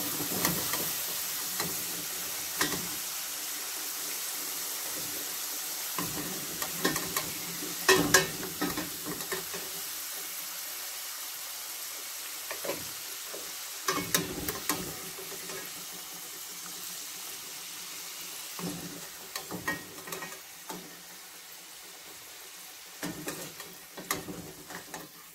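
Potato pieces deep-frying in hot oil in a stainless-steel pan, a steady sizzle that dies down gradually as they are lifted out. A metal slotted skimmer scrapes and clinks against the pan several times.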